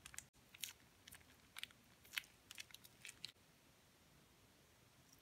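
Faint sticky crackles and small clicks of white glue being squeezed out of a plastic bottle into a glass bowl, over roughly the first three seconds.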